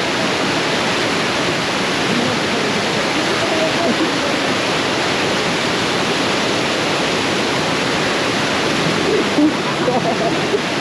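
River water rushing steadily in a loud, even wash.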